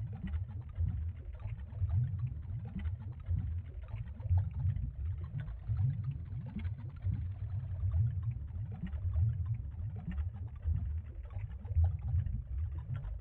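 Underwater ambience: a continuous low, surging rumble with a bubbly, watery texture over it.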